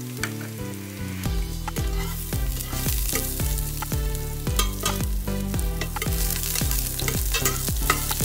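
Minced garlic sizzling in hot oil in a stainless steel pot while a metal spoon stirs it, scraping and clicking against the pot's bottom. Background music with a steady beat runs underneath.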